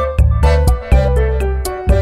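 Background music with a steady beat and a held bass line under sustained melody notes.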